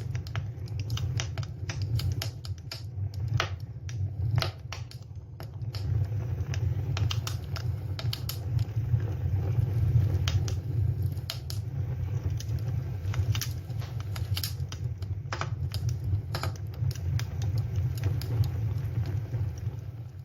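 Campfire crackling, with sharp irregular pops and snaps of varying strength over a steady low rumble.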